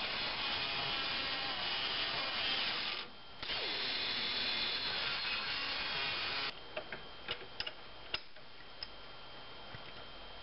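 Handheld rotary tool cutting through a brake line, running steadily. It stops briefly about three seconds in, starts again, and shuts off about six and a half seconds in. A few light clicks and taps of metal follow.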